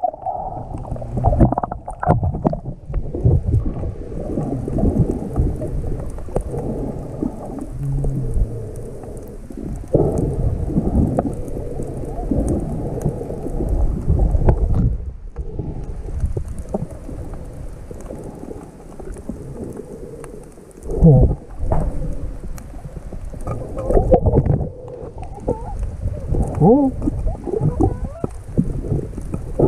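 Muffled underwater sound from a microphone held below the surface: a low, churning rush of moving water that swells and fades, with short gurgling bubble sounds, more of them in the last third.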